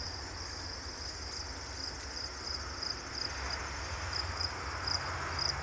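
Crickets chirping in a steady high-pitched chorus, individual chirps standing out more clearly in the second half, over a faint low rumble.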